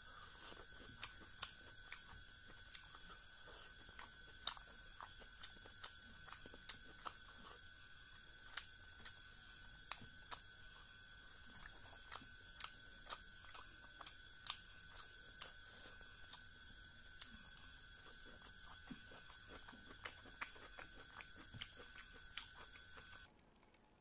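Close-up eating sounds of a person chewing rice and fish curry with bamboo shoots: wet chewing and lip smacks with frequent sharp mouth clicks. A steady high-pitched hum runs underneath and cuts off suddenly near the end.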